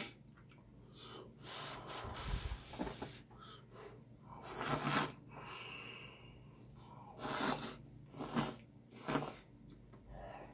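Ramen noodles being slurped and eaten: a run of noisy slurps with breaths between them, the longest about four and a half seconds in, followed by several shorter ones.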